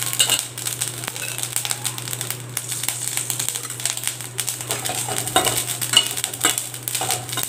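Steel spoon scraping and clinking against a stainless steel pan as grated coconut is stirred and roasted in a little oil, a run of quick, irregular scrapes and taps.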